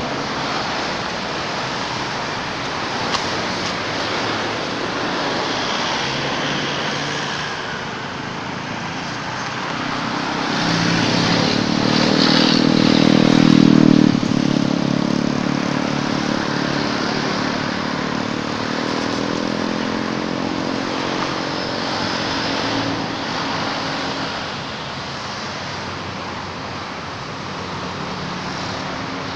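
A motor vehicle passes by: its engine hum grows louder to a peak about halfway through, then fades. A steady outdoor background noise runs under it.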